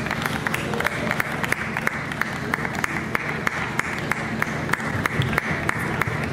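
Applause from a group of people clapping by hand, an uneven patter of separate claps, over a steady low hum.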